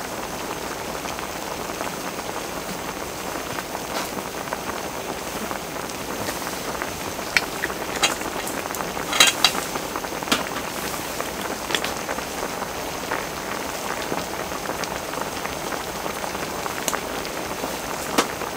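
Pork and kimchi stew boiling in a cast-iron cauldron lid: a steady bubbling hiss with occasional sharp pops, the loudest about nine seconds in.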